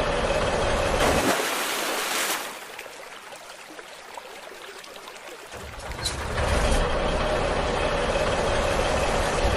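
A steady engine-like drone, broken about a second in by a splash as a toy dump truck drops into muddy water. A quieter stretch of watery hiss follows, and the drone returns about six seconds in.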